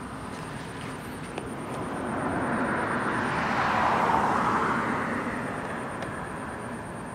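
A passing vehicle: its noise swells to a peak about four seconds in and then fades away, over a steady outdoor background hiss.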